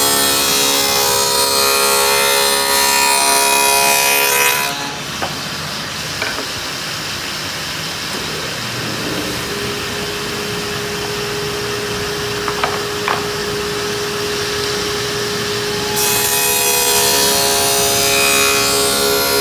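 Table saw with a 3/4-inch dado stack cutting a groove in hardwood: a loud whine with a rush of cutting noise. The cut ends about five seconds in, and the saw runs on unloaded with a steady tone while a few clicks of wood being handled sound. A second groove cut starts about sixteen seconds in.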